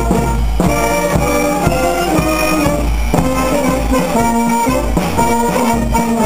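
Background music: a brass band playing with a steady beat.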